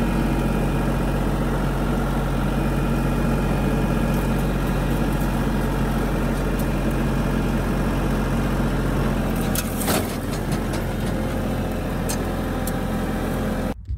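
An engine idling steadily, with a few sharp clicks about ten seconds in.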